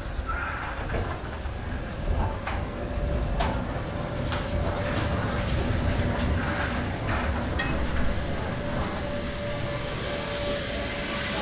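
AD60 class Beyer-Garratt steam locomotive 6029 rolling slowly past along the platform. There is a steady low rumble with scattered clicks and knocks from the wheels on the rails, and a hiss of steam building near the end.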